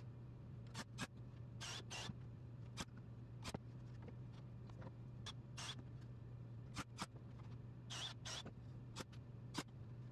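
Thin plywood slats squeaking and scraping against each other and the frame as they are handled and fitted, about a dozen short, irregular squeaks over a steady low hum.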